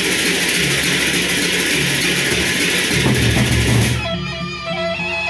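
Gendang beleq gamelan from Lombok played seated: many pairs of hand-held cymbals clash without a break over the large drums. About four seconds in the cymbals stop suddenly, leaving steady, ringing pitched tones and drum strokes.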